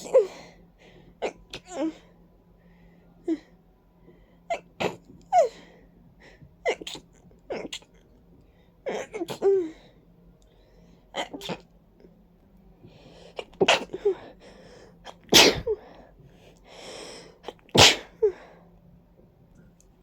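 A person sneezing again and again in a long run of wet, congested sneezes. Each one is a sharp burst ending in a short falling cry, and the loudest two come about 15 and 18 seconds in. The uploader puts the sneezing down to ragweed and dust allergy with a stuffy, running nose.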